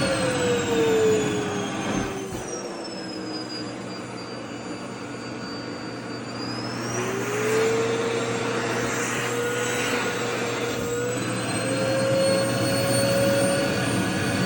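Vacuum cleaner running with a steady motor whine. Its pitch slides down over the first few seconds and the sound gets quieter. About halfway through, the pitch climbs back up and the sound grows louder again.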